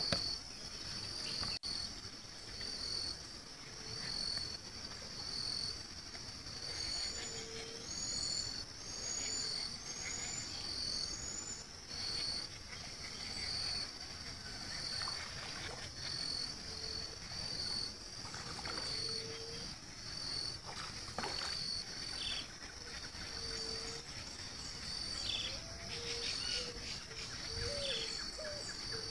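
Insect chorus at a riverbank: a steady high shrill with a chirp pulsing about once a second. About a quarter of the way in come five short rising high calls, one after another.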